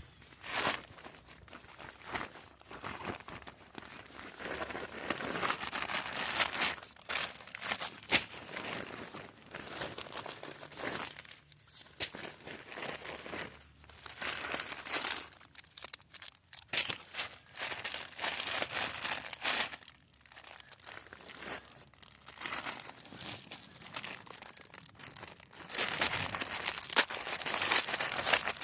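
Crinkling and rustling of something being handled, in irregular bursts with short pauses, loudest near the end.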